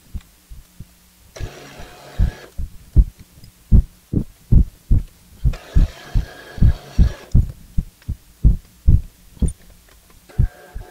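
A milling machine drilling holes in a metal fly cutter body: the spindle runs in short spells of about a second, three times, with a steady whine. Under it is a regular low thumping of two to three beats a second.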